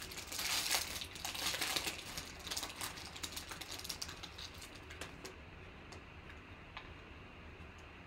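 Foil wrapper of a trading-card pack crinkling as it is pulled open and the cards are slid out. The crinkling is loudest in the first couple of seconds, then dies down to a few faint clicks as the stack of cards is handled.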